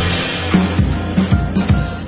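Background music: upbeat jazz or swing with drum kit and walking bass.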